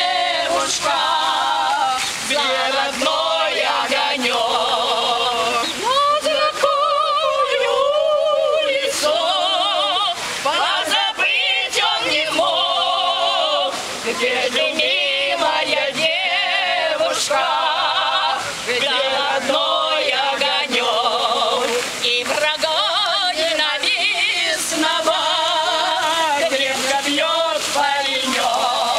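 A group of older men and women singing a song together in unison, unaccompanied, their voices wavering.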